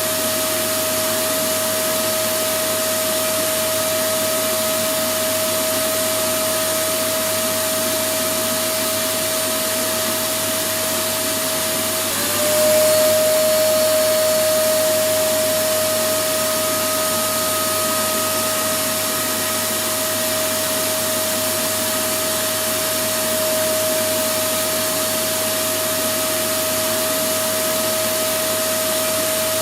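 Electric vacuum cleaner running continuously: a steady whine over a loud even hiss. About twelve seconds in the whine briefly dips and the sound gets a little louder, then settles back.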